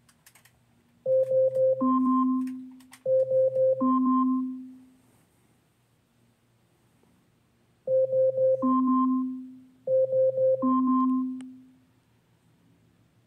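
Amazon Echo smart speaker sounding its Alexa alarm: an electronic chime of four quick beeps followed by a longer tone that fades away. The chime plays twice in a row, pauses for about three seconds, then plays twice more.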